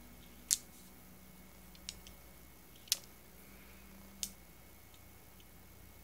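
TEC Accessories Orbiter fidget toy: its metal ball clicking against the metal body as it is worked in the fingers. Four sharp, single clicks come at uneven gaps of a second or more.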